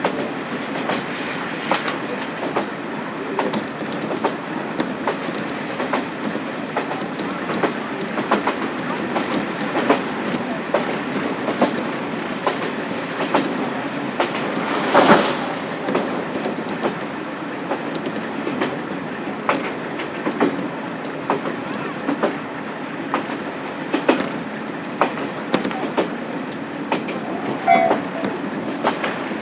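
Running sound of a KiHa 47 diesel railcar with its original DMF15HSA engine, heard from on board: a steady rolling rumble with wheels clacking over rail joints. A single louder bang comes about halfway through.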